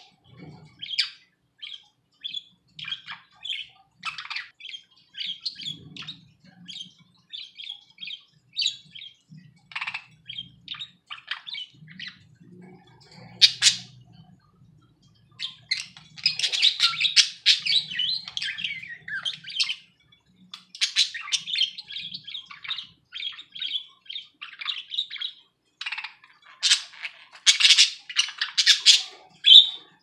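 Budgerigars chirping and chattering in quick, short high calls, running into denser warbling about halfway through and again near the end.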